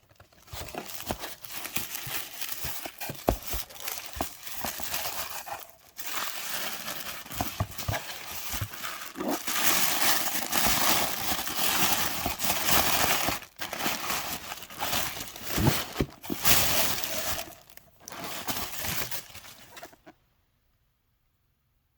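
Packaging being handled by hand: paper and plastic crinkling and rustling, with small knocks and clicks. It stops abruptly near the end.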